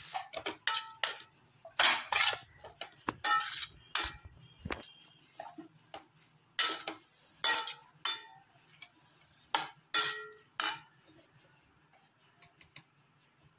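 A metal spoon clinking and scraping against a stainless steel bowl as chopped greens are tossed, about a dozen separate strokes. They stop about eleven seconds in.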